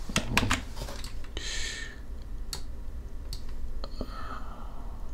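A handful of separate computer keyboard and mouse clicks over a low steady hum, with a short hiss about a second and a half in.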